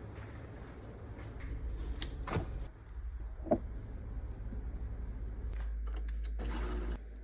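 Indoor handling sounds: a few soft knocks and clicks with some rustling over a low steady hum.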